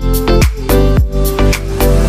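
Background music: an electronic dance track with a steady kick-drum beat, about four beats a second, over a deep bass.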